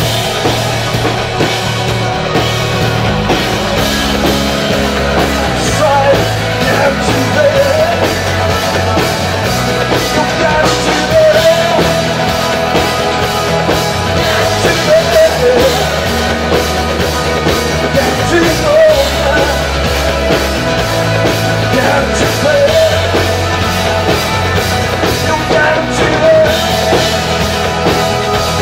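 Live worship rock music played loud by a band with drums and guitars, a man singing over it.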